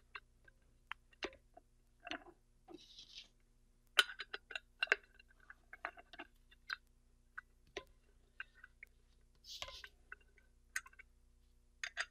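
Small, scattered metal clicks and taps of an open-end wrench being fitted to the bell crank bolt of a Dillon powder measure to tighten it, with brief handling rustles; the sharpest click comes about four seconds in.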